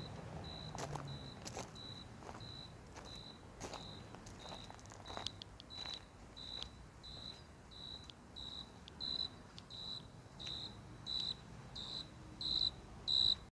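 Cricket chirping, a short, even chirp repeated about twice a second that grows louder near the end.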